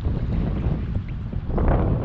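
Wind buffeting the microphone on open water, a steady low rumble, with a louder rush starting about a second and a half in.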